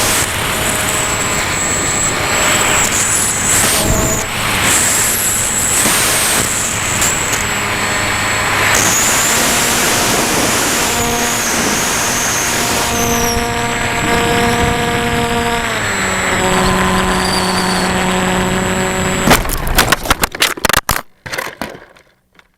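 Onboard audio of a Ranger EX FPV plane in flight: air rushing past with the electric motor and propeller humming, the motor's tone dropping in pitch about two-thirds of the way through as the throttle comes back. Near the end comes a quick run of sharp knocks and thuds as the plane crashes, then the sound cuts out.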